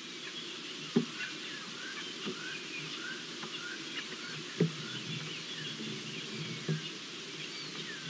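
Background of many small birds giving short rising chirps, broken by four single wooden knocks from a bearded woodpecker pecking at a wooden pole. The clearest knocks come about a second in and a little past the middle.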